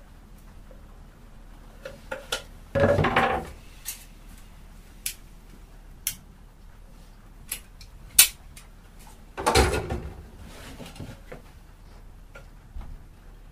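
Workbench handling sounds as glue is worked onto pine hive-box boards with a caulking gun and a putty knife. Scattered clicks and knocks, with two louder, longer bursts of noise about three seconds in and again near ten seconds.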